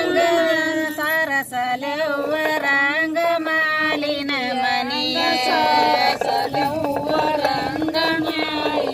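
Women singing a beesokallina pada, the Kannada folk grinding-stone song sung while turning a hand stone mill, in a slow melody of long, gently wavering notes.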